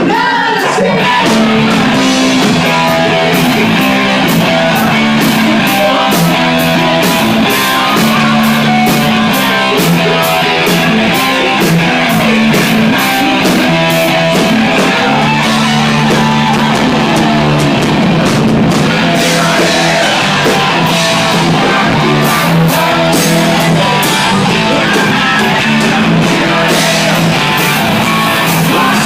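Live hard rock band playing loud: distorted electric guitar, bass and drums keeping a steady beat.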